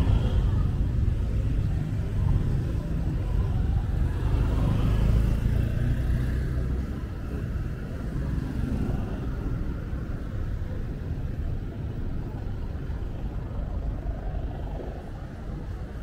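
Busy street traffic: car and motorbike engines running close by in slow, jammed traffic, a low rumble that is loudest for the first six or seven seconds and then eases off.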